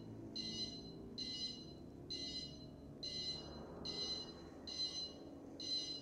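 Electronic beeper sounding a steady run of short, high beeps, about one a second, seven in all.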